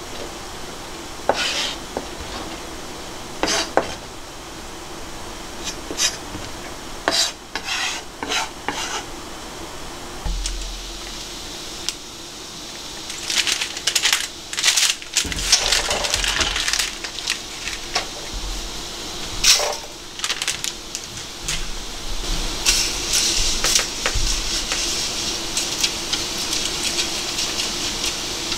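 A kitchen knife tapping on a plastic cutting board in scattered strokes as cod roe is minced. Later, metal pot clatter, then a steady hiss of water boiling in a large metal stockpot as pasta is stirred with wooden chopsticks.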